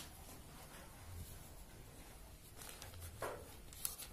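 Faint handling noises: a few sharp clicks and a short rustle as a plastic gel-ball bottle and a toy gel blaster rifle are handled.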